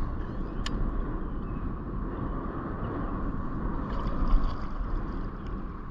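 Wind buffeting the microphone over a steady rushing noise from the boat on the water, with one sharp click about two-thirds of a second in.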